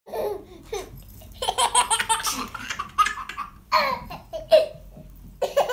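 A baby laughing in several high-pitched fits, starting about a second and a half in.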